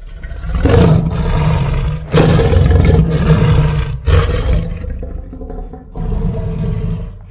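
Creature sound effect for a tapiraphant, an imagined tapir-elephant hybrid: a run of four loud roars, each about two seconds long, the last two quieter.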